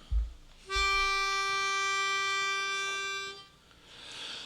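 A pitch pipe blown once: a single steady, reedy note held for about two and a half seconds, sounding the starting pitch for an a cappella barbershop quartet.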